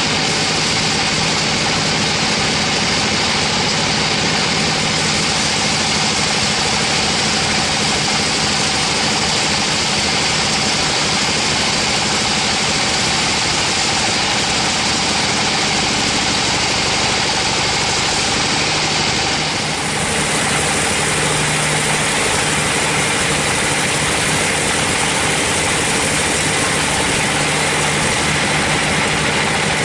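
Band sawmill running and sawing through teak, a steady, loud machine drone with the hiss of the blade in the wood; the sound shifts slightly about twenty seconds in.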